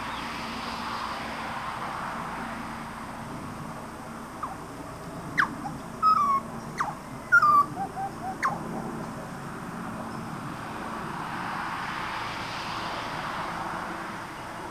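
Juvenile grey butcherbirds calling: a burst of short, sharp calls and brief downslurred notes lasting about four seconds around the middle, over a steady background hiss.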